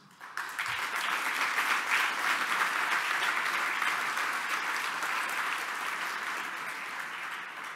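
Audience applauding: many people clapping at once in a dense, steady patter that tapers off near the end.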